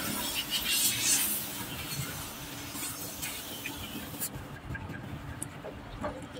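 Water from a garden hose splashing over a truck radiator's header and core as it is rinsed, with faint rubbing of fingers on the tubes. The hiss of the water drops away about four seconds in.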